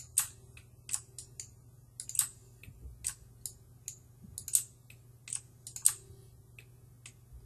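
Computer keyboard keys being pressed in irregular taps, roughly two or three a second, over a faint steady low hum.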